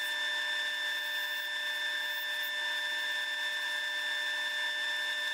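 Wood lathe spinning a hickory blank while a hand-held turning tool cuts it, a steady high whine over a shaving hiss, sped up fivefold.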